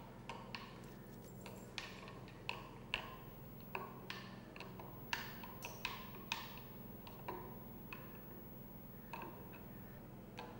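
Spoon clinking against the inside of a glass jug while stirring buttermilk: light, irregular taps with a short ring, about one or two a second.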